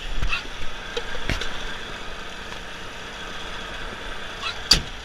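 Volvo VNL 730 semi truck's diesel engine idling steadily, with a few sharp clicks, the loudest one near the end.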